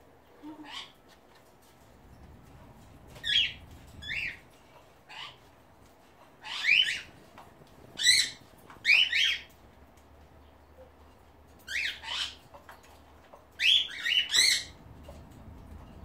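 Pet cockatiels calling from their cage: about a dozen short chirping calls, each a quick downward sweep, coming singly, in pairs and in quick clusters, with the liveliest cluster near the end.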